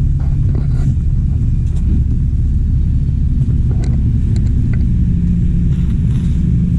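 Bus engine running close by, a steady low rumble with a hum.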